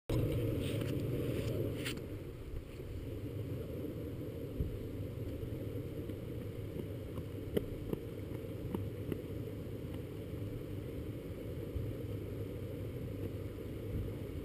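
An off-road pickup's engine idling as a low, steady rumble, with a brief louder hiss in the first two seconds and a few faint clicks about halfway through.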